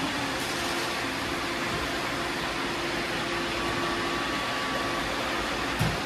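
Many robot vacuums running at once: a steady whirring hum of their motors and brushes, with a single knock near the end.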